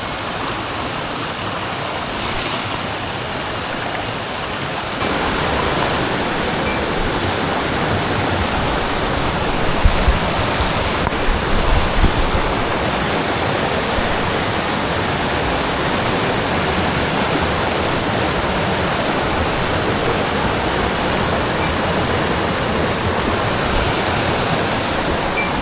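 Rushing water of a mountain stream and waterfall, a steady dense noise that steps up louder about five seconds in. A few low bumps come around ten to twelve seconds in.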